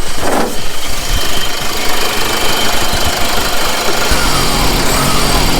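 Vehicle engine idling, under a loud steady rushing noise; a low hum comes up about four seconds in.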